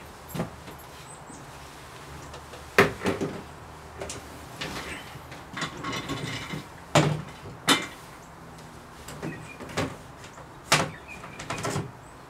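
Irregular knocks and clatters of hard objects being handled, about a dozen in all, the sharpest about three seconds and seven seconds in, over a faint steady hum.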